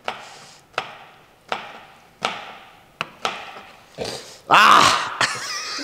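A chef's knife chopping on a plastic cutting board: a series of sharp knocks, about one every three-quarters of a second. Near the end comes a short, louder noisy burst with a voice mixed in.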